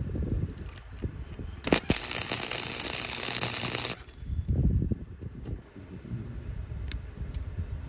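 An electric welding arc crackling and hissing for about two seconds as a short bead is laid on the steel shovel's tang. It starts with a sharp crack about two seconds in and cuts off abruptly, with low rumbling around it and a couple of small ticks near the end.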